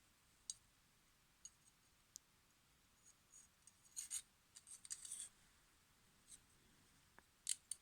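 Faint metallic clicks and scraping from a small black two-bladed pocket knife being handled: a few isolated clicks, a cluster of scrapes about four to five seconds in, and a couple of sharper clicks near the end.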